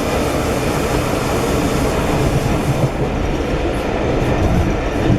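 Steady running noise of a moving railway carriage heard from inside: wheels rolling on the rails with a constant rumble.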